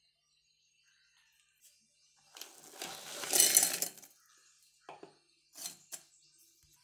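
Broken chocolate biscuit pieces tipped from a plastic bowl into a stainless-steel mixer jar: a clattering rush lasting about two seconds, followed by three short clicks as the pieces are pushed down in the jar.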